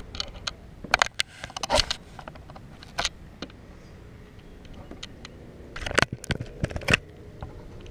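Handling noise from an action camera being gripped and repositioned: a scattering of sharp clicks and knocks, a few in the first two seconds, one about three seconds in, and a cluster around six to seven seconds.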